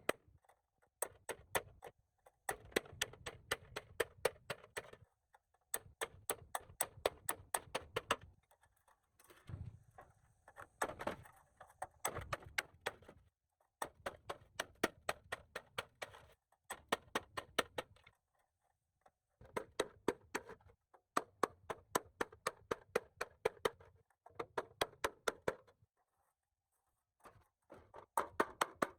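Rapid, evenly spaced clicking, about five clicks a second, in bursts of a few seconds with short pauses between them.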